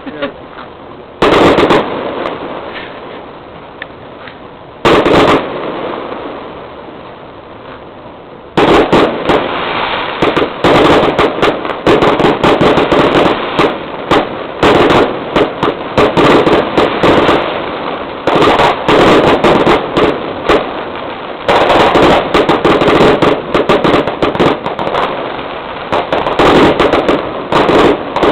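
Fireworks going off: two single loud bangs a few seconds apart, then from about eight seconds in a dense, rapid barrage of bangs and crackling that continues, easing briefly twice.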